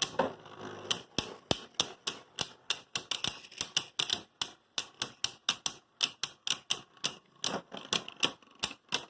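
Two spinning Beyblade tops, Helios Volcano and Hyperion Burn, knocking against each other in the stadium: a steady run of sharp clicks, about three to four a second.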